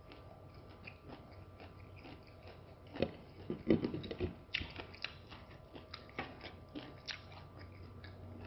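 A person chewing lemon wedges: soft, wet mouth clicks and smacks throughout, busiest about three to four and a half seconds in.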